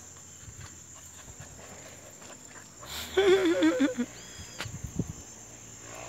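An animal's wavering cry, about a second long, about halfway through.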